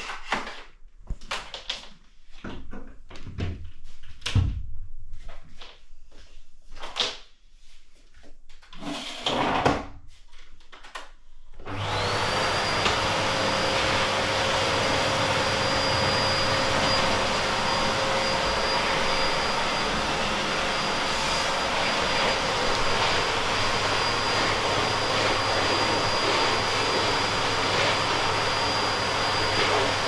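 Irregular rubbing and knocking sounds for about the first third. Then a Bosch BGS21X320 bagless canister vacuum cleaner switches on: its motor whine rises briefly to a steady high pitch, and it runs steadily as it is used on the floor.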